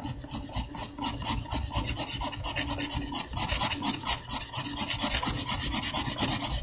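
Soft 6B graphite pencil scratching across drawing paper in quick back-and-forth shading strokes, several a second, under light hand pressure.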